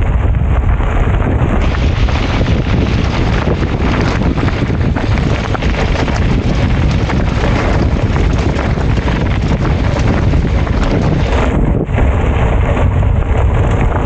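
Wind buffeting a helmet-mounted camera's microphone as a bicycle rolls fast down a gravel dirt track. The tyres crunch and rattle over loose stones, and the rattle eases near the end.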